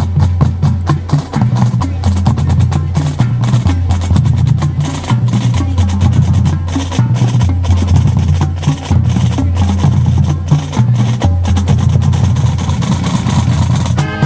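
Marching band drumline playing a percussion feature: rapid snare strokes and rolls over deep low notes. The wind section comes back in at the very end.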